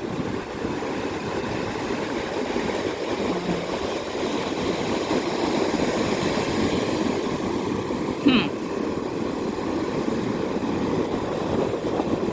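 Ocean surf washing up the beach as a steady rush, with wind rumbling on the microphone. A brief, higher-pitched cry comes about eight seconds in.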